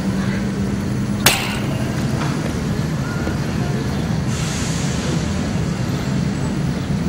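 Steady street traffic noise, with one sharp click about a second in.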